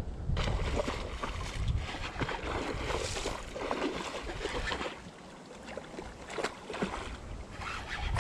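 Handling noise from a fleece sleeve brushing and rubbing against the chest-mounted camera's microphone as a baitcasting rod and reel are worked, with scattered clicks and knocks and wind rumble on the microphone. It eases off briefly around the middle.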